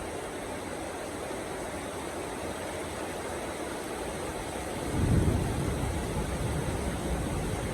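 Heavy rain falling steadily, with a low rumble of thunder swelling about five seconds in and slowly dying away.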